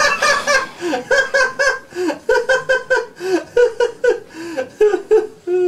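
A person laughing in a fast, unbroken string of short, high-pitched 'heh' sounds, about four or five a second, ending on a longer falling note.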